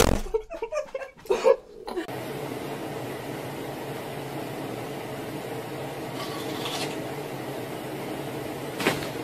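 Steady low hum of room noise, after about two seconds of short muffled sounds at the start, with one brief knock near the end.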